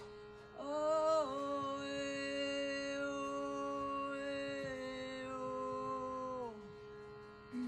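A woman's voice singing one long wordless, chant-like note over a steady drone. The note starts about half a second in, dips slightly in pitch just after, and slides down and fades near the end.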